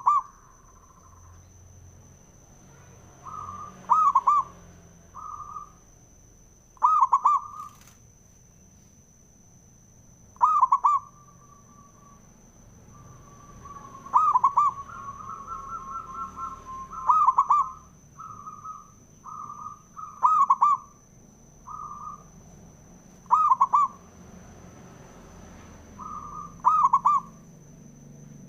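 Male zebra doves (perkutut) cooing: loud, rhythmic coo phrases about every three seconds, with softer coos in between. A faint steady high whine runs underneath.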